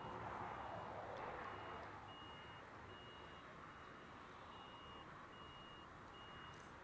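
Faint jet engine rush of a Boeing 737 rolling out on the runway after landing, easing off after the first couple of seconds. Over it, a high electronic beep repeats a little more than once a second like a reversing alarm, stopping near the end.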